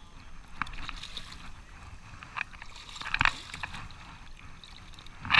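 Shallow water sloshing and splashing around a wader-clad angler's legs in irregular splashes, the loudest a little over three seconds in.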